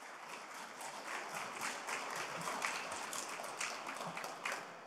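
Audience applauding, a dense patter of claps that swells and then dies away near the end.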